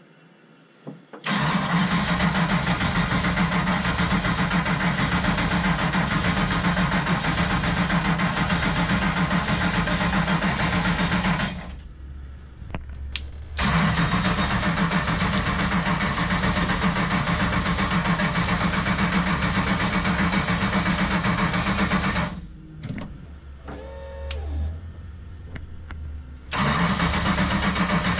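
Engine of a 900-horsepower Nissan 240SX drift car on a hard cold start: repeated start attempts, with loud, steady engine noise that cuts out about eleven seconds in and again about twenty-two seconds in, then comes back each time. It takes several tries before it keeps going.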